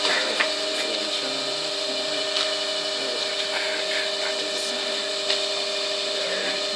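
Old Tinius Olsen universal testing machine running with a steady hum, with a few faint clicks.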